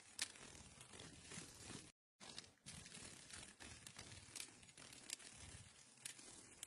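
Near silence, with faint scattered clicks and light rustling, and a brief dead-silent gap about two seconds in.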